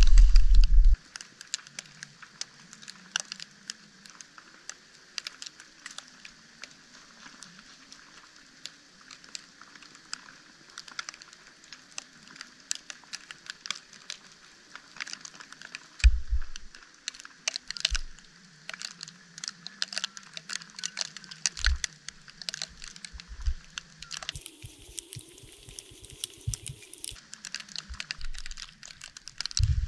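Falling snow ticking faintly on a tent fly and the camera, heard as a steady scatter of fine ticks and crackles, with a few low thumps. It begins with about a second of loud low rumble.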